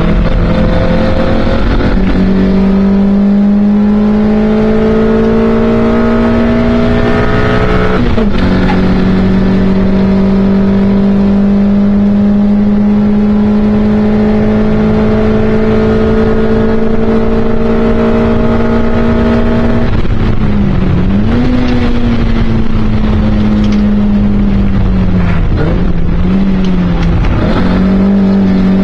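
Toyota MR2 Mk1 (AW11) race car's mid-mounted four-cylinder engine heard from inside the cabin at high revs under load. The pitch climbs slowly, drops sharply at a gear change about eight seconds in, climbs steadily again for a long stretch, then falls and rises several times over the last third as the car slows and shifts for corners, rising again near the end.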